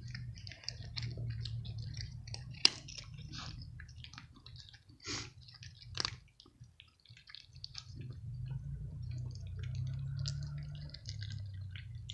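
Cats crunching dry kibble off a stone floor: many quick, crackly crunches, with a sharp click about two and a half seconds in and a low steady hum underneath.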